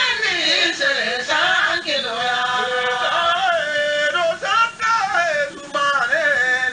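A man's voice chanting in long melismatic phrases, the pitch sliding and wavering through ornamented held notes, with short breaks for breath.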